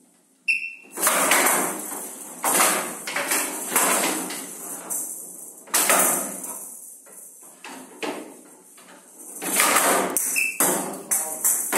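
Showdown rally: the rattling showdown ball, with metal beads inside, rolls and rattles across the table and is struck by wooden bats and knocks off the wooden side walls, a string of sharp knocks. A short high tone sounds twice, near the start and near the end.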